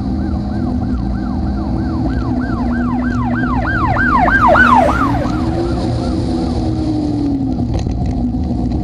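An emergency vehicle's yelp siren, rising and falling about four times a second, grows louder and passes about four to five seconds in, its pitch dropping as it goes by. Steady road and engine noise from the car carrying the camera runs underneath.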